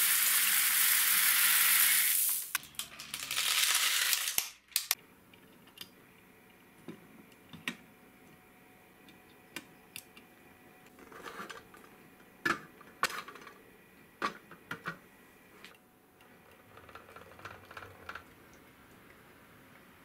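Loose gravel pouring and rattling down, with a short break about two seconds in, then cutting off sharply about four and a half seconds in. After that come scattered light clicks and taps as a small die-cast toy truck is handled and set on a table.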